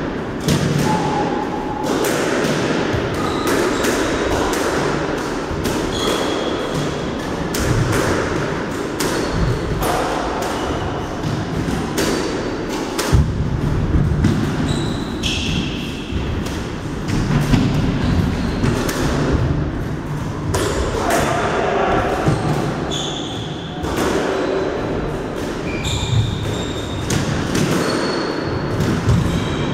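Squash rally: repeated sharp smacks of the ball off the racket strings and the court walls, with footsteps and short shoe squeaks on the wooden court floor.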